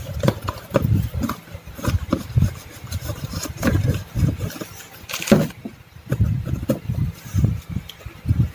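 A cardboard mystery box being opened by hand: irregular knocking and rustling of the box and packaging, with a loud tearing rip about five seconds in.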